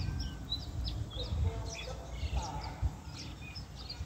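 Small birds chirping in short, scattered calls, over an irregular low rumble.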